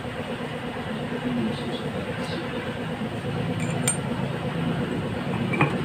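Steady low mechanical hum, with a few light metallic clinks about two-thirds of the way through and near the end.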